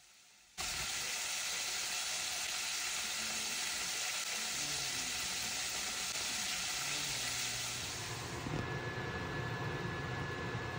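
Flour-coated chicken drumsticks deep-frying in hot oil in a stainless steel pot, a steady sizzle that starts just after the beginning. Near the end the sizzle gives way to a lower steady hum with a thin high tone.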